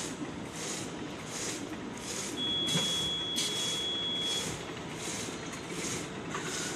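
Plastic bag making machine running in a steady cycle, with a burst of hiss about every three-quarters of a second. A high steady beep sounds for about two seconds midway, with a short knock just after it starts.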